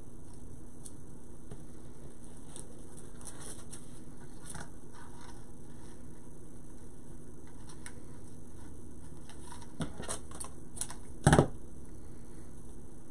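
Ribbon rustling and crinkling softly as it is handled and pinched into loops for a bow, then a few sharp clicks and one short loud knock near the end. A steady low hum runs underneath.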